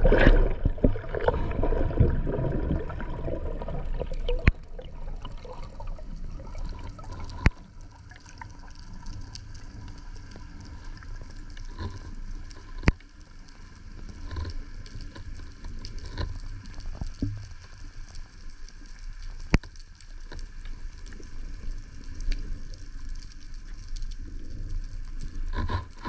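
Underwater water noise during a breath-hold dive toward the seabed. Water rushes past and gurgles, loudest in the first four seconds, then settles to a lower steady hiss and rumble. A few sharp single clicks come through at intervals.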